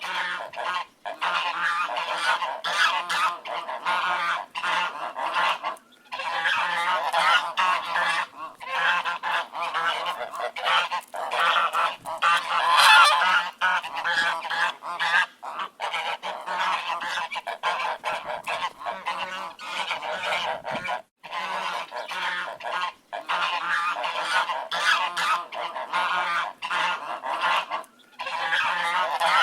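A flock of ducks quacking continuously, many calls overlapping, with a few brief breaks.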